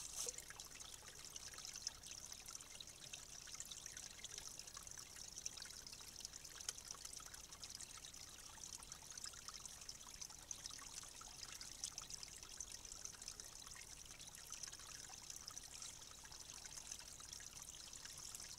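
Faint trickle of water through a beaver dam, a steady hiss dotted with scattered soft crackles and rustles.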